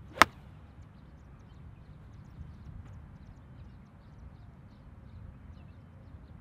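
A 7-iron striking a golf ball off the grass: one sharp, crisp click about a quarter second in, followed by a low, steady outdoor background noise.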